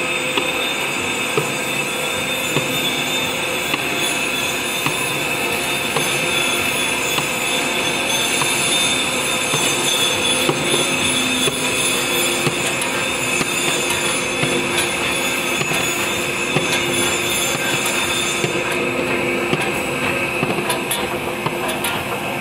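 Rotary tablet press running steadily as it compresses one-inch chlorine tablets: a dense metallic clatter of the turret's punches with rapid small clicks and a steady high whine.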